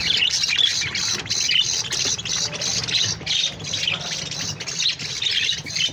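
A flock of budgerigars chattering and squawking nonstop as they feed: a dense stream of quick, high chirps, several a second.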